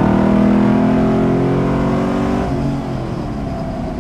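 The Rally Fighter's straight-piped GM LS V8 accelerates hard from about 40 mph, heard from the cockpit, its pitch rising steadily as it pulls through a gear. About two and a half seconds in, the throttle comes off and the engine note drops away.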